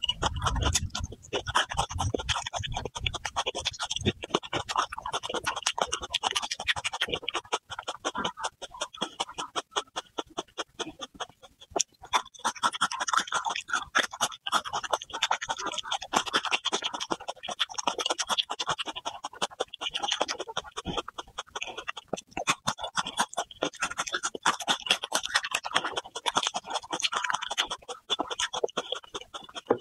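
Close-miked chewing of soft food: a dense stream of wet mouth clicks and smacks, with a few low thuds in the first couple of seconds and a quieter stretch partway through.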